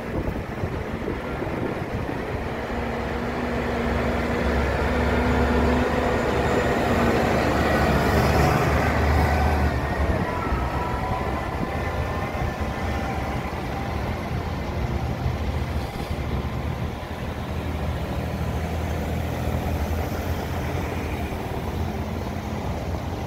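Vehicles driving past on a wet cobbled lane, engines running with a steady low tone and tyre noise over the cobbles; the sound swells to its loudest about eight seconds in, then eases off.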